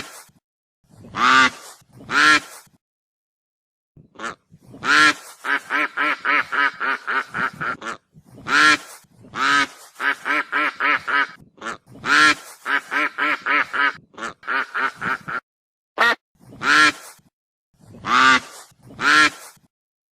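Geese honking: loud drawn-out honks, with long runs of quick, short calls at about four or five a second.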